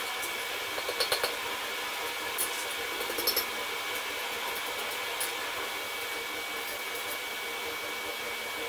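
Coal forge's electric air blower running steadily with a rushing hiss, over which come a few sharp metal clinks of hammer and tongs on the anvil, three close together about a second in and two more a little after three seconds.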